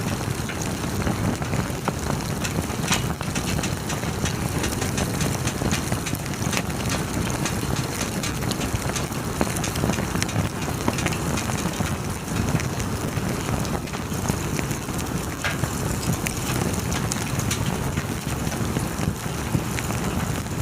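Campfire crackling: many small, sharp pops and snaps, irregular and scattered throughout, over a steady low noise.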